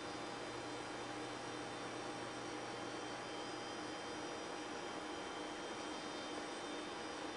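Steady electrical hum and hiss, with several faint steady tones and no other events.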